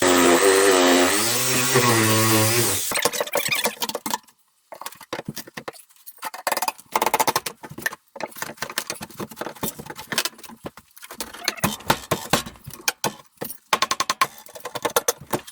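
A power saw cuts for about three seconds, its pitch wavering under load, then stops, likely cutting out a floorboard to get at the old stove foundation. Irregular knocking and clattering of wood and debris follow.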